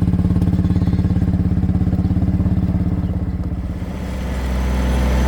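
A small farm vehicle's engine running with a fast, even pulse. About four seconds in it settles into a smoother, steady low hum, as at idle.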